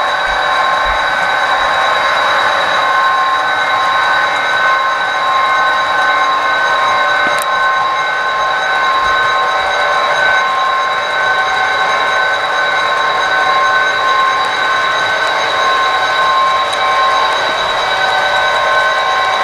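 HO scale model train of tank cars running steadily along the layout, its running and rolling noise carrying a constant high hum.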